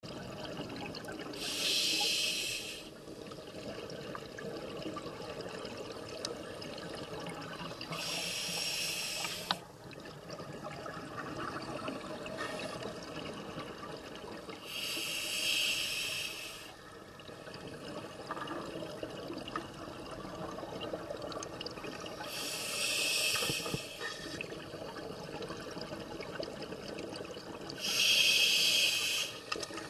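Scuba diver breathing through a regulator underwater: five bursts of exhaled bubbles, each about a second and a half long, coming roughly every six to seven seconds, with a steady low underwater noise between them.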